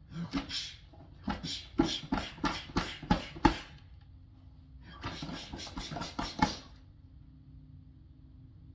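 A quick run of sharp knocks and thumps, the loudest about three and a half seconds in, then another cluster about five seconds in. A faint steady low hum lies underneath.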